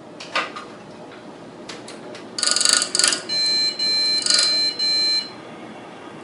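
An ASRock motherboard's POST beeper giving four short, high-pitched beeps in quick succession about midway through. This is a failed-POST error code that the board's documentation does not list, later traced to a faulty RAM stick.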